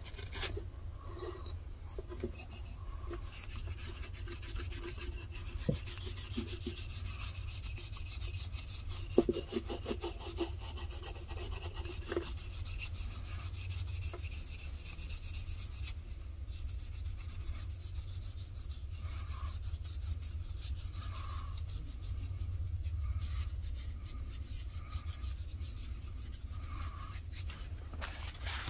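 Never Dull polishing wadding rubbed briskly back and forth on a damascus steel knife blade: a fast, scratchy rubbing, thickest in the first half, with a few small clicks. A steady low hum sits underneath.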